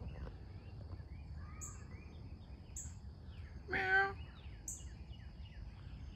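Woodland birds singing: many quick, downward-slurred chirps, with a very high short peep about once a second, over a low steady background rumble. About two-thirds of the way through, a louder, brief wavering voice-like call stands out over the birdsong.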